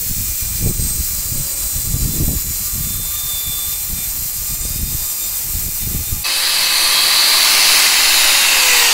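Corded angle grinder with a wire cup brush scouring rust off a steel go-kart wheel rim: a loud, steady hissing scrape with uneven low rumbles while the brush bites the metal. About six seconds in the brush is lifted clear and the grinder runs free, louder and brighter. Near the end its whine falls in pitch as it winds down.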